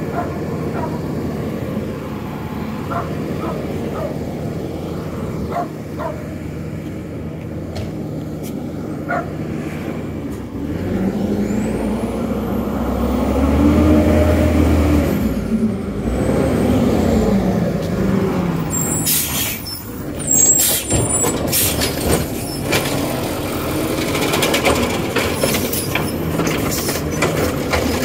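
An automated side-loader garbage truck's engine running steadily, then revving up and down for several seconds from about ten seconds in. From near two-thirds of the way in come sharp air-brake hisses and clattering knocks.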